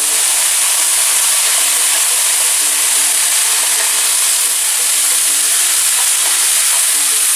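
Diced red peppers frying in a pan, a steady sizzle, as diced chicken is tipped in on top.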